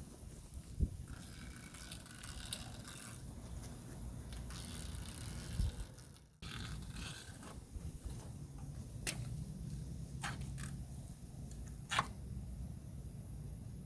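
Light scraping and handling of aluminium screen mesh and its rubber spline during screen installation, with a few sharp clicks and ticks spread irregularly through it.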